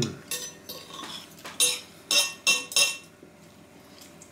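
Steel knife and fork scraping and clinking against a china plate as a pastry steak slice is cut. A few light scrapes come first, then four sharp, ringing clinks in quick succession around the middle.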